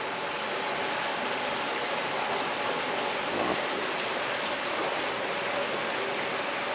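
Steady rushing of water flowing through fish-hatchery incubation troughs, with a faint steady hum under it.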